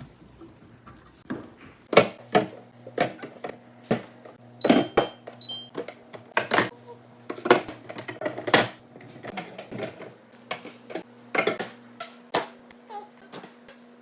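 Condiment bottles and jars being handled and set down on fridge shelves: irregular clinks and knocks, about a dozen sharp ones, over a steady low hum that stops near the end.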